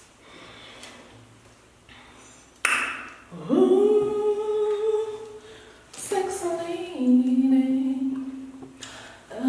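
A woman's voice singing a wordless tune, starting about two and a half seconds in: long held notes, the second phrase stepping down in pitch.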